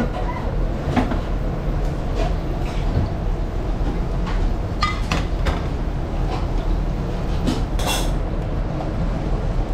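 Scattered knocks and clinks of a plate and hands working in a steel tray of flour as seafood is dredged for frying, over a steady low kitchen rumble. A sharper clatter comes near the end.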